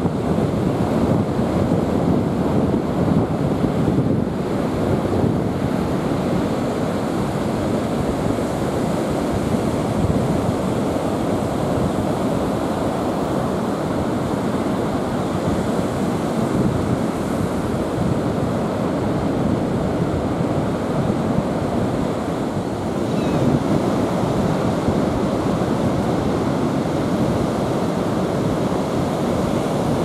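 North Sea surf breaking and washing up a sandy beach in a steady, continuous roar, with wind buffeting the microphone.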